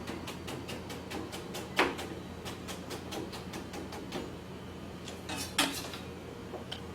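Knife chopping a carrot on a cutting board in a quick, steady rhythm of short knocks, with a louder knock about two seconds in and two more about five and a half seconds in.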